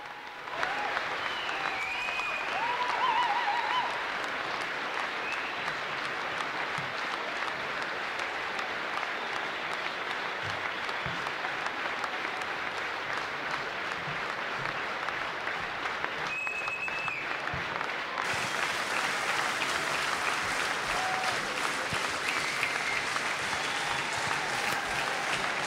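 Arena audience applauding steadily, with a few cheers and whistles, the applause swelling about eighteen seconds in.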